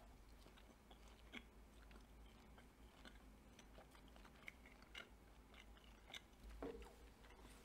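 Faint chewing of beef jerky, heard as soft scattered mouth clicks, with a brief low hum near the end.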